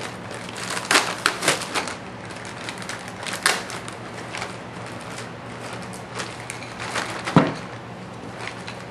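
Plastic packaging bags crinkling and rustling as they are pulled open and a rifle stock is drawn out. Sharp crackles come in clusters about a second in, again at about three and a half seconds, and once more about seven seconds in.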